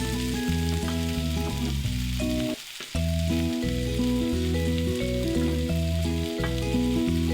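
Background music over food sizzling as it fries in a pan. All sound drops out briefly just under three seconds in.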